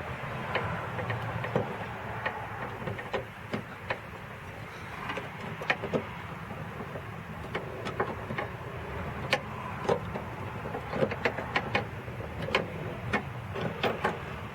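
Hand tool working at a 10 mm bolt inside a car door: sharp, irregular metallic clicks and clinks, coming faster near the end, over a steady low rumble.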